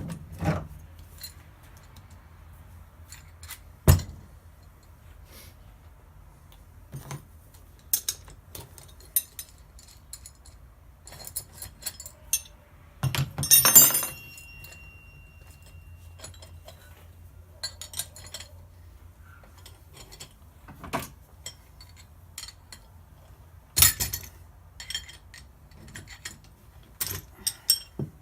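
Metal tools and parts clinking and knocking during hands-on work, with a few sharp metallic knocks: one about four seconds in, a rattling cluster around the middle, and another some ten seconds later.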